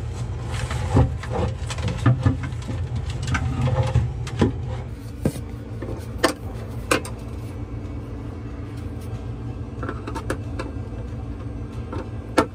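Scattered knocks and clicks of hand work over a steady low hum, the knocks thicker in the first half.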